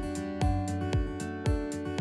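Background music with a steady beat, about two beats a second, under sustained plucked-string notes.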